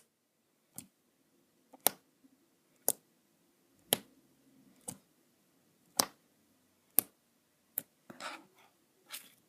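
Putty slime being poked with a finger in a poke test, giving sharp little clicks and pops about once a second.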